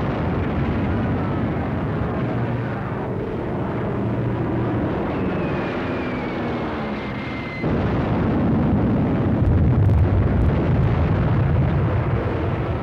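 Film sound effects of an air raid: a steady rumble of aircraft and explosions. Near the middle a falling whistle runs for a couple of seconds, and then a sudden, louder blast follows.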